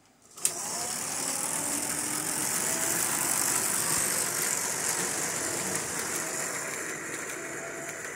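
Vintage Parmele & Sturges O-scale electric locomotive, twin motors driving all wheels through chains and gears, running on three-rail track and pulling a freight train. It starts with a click about half a second in and settles into a steady rolling rumble of wheels on rail with a faint motor whine.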